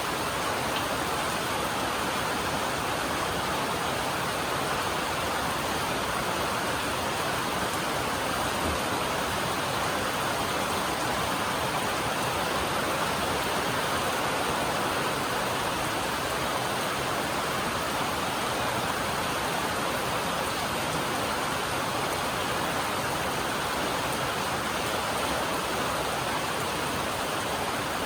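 Rain falling steadily on a metal roof: a dense, even hiss of drops that keeps up without let-up.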